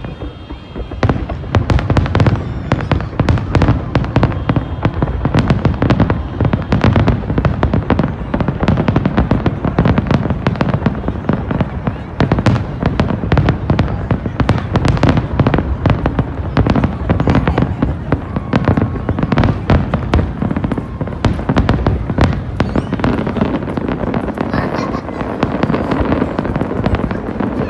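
Large aerial fireworks display: a dense, unbroken barrage of shells bursting, many sharp bangs a second, getting loud about a second in.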